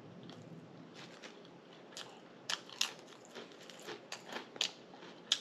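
Close-miked eating: quiet chewing at first, then from about two seconds in a run of sharp, irregular crunches and mouth clicks as food is bitten and chewed.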